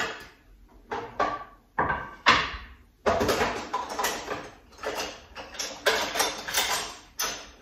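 Wooden cutting boards and kitchen utensils knocked and shifted about in a sink: a few separate sharp knocks in the first half, then a busier run of clattering and scraping.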